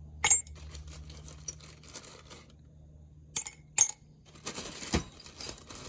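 Pieces of soldered copper scrap dropped into a crucible, clinking: a sharp clink just after the start, two more past the halfway mark, and a small run of clinks near the end, over a faint low hum.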